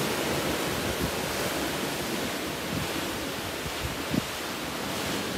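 Steady rush of the sea churning along a moving cruise ship's hull, heard from a high balcony with wind blowing on the microphone. One brief bump a little after four seconds in.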